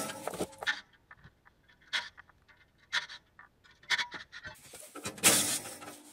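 Handling noise from taking the side wing off a steel ATV snow plow with a cordless drill: scattered short metallic clicks and clinks of the tool against the bolts. A brief, louder rustling burst comes about five seconds in.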